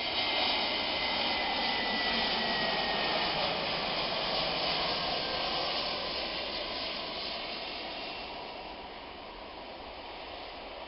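Jet airliner passing low on its landing approach: steady jet engine noise with a falling whine over the first few seconds, fading away after about six seconds as it moves off.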